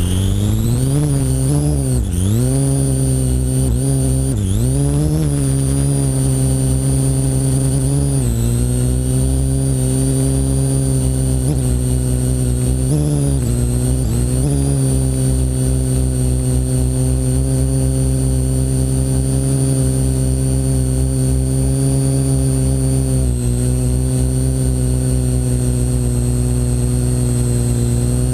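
Parrot AR.Drone quadcopter's electric motors and propellers whining as they spin up, the pitch swooping down and up several times in the first eight seconds as the drone climbs and steadies, then holding a steady buzzing whine in flight.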